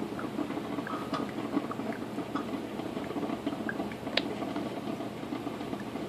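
Rival drip coffee maker gurgling and sputtering near the end of its brew cycle: steady bubbling with scattered small pops, and one sharper click about four seconds in.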